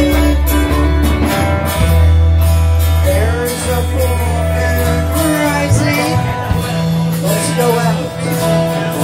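Live band playing: electric and acoustic guitars strumming chords over a steady bass line, with vocals coming in about three seconds in.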